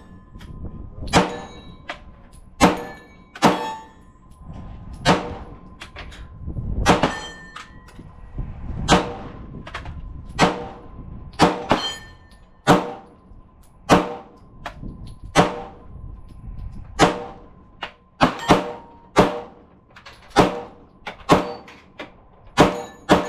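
Pistol-calibre gunshots at a steady, deliberate pace of about one a second, with a few quicker doubles and triples in the second half, each with a short echoing tail. Steel targets are heard ringing after the hits.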